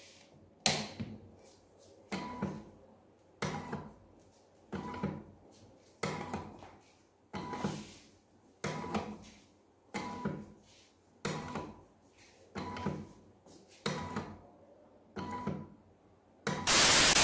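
NEMA 17 stepper motor driving a lead-screw linear actuator in short repeated moves, about one every second and a quarter, each a brief whine with a steady tone and a pause between, as the carriage is run under Arduino control. Near the end a loud burst of hiss.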